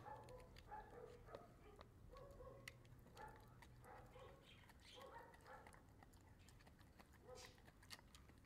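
Faint sounds of a dog gnawing a large dried bone: scattered sharp clicks of teeth on bone, with short, faint pitched sounds about every second.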